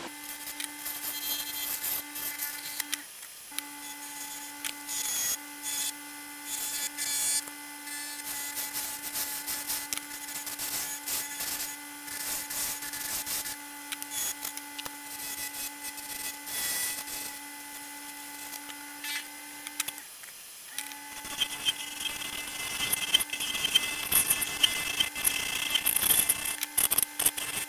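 Wood lathe running with a steady motor hum while a turning tool cuts a segmented hardwood decanter neck, giving irregular scraping and rasping. The hum breaks off briefly twice, and the cutting grows harsher and hissier near the end.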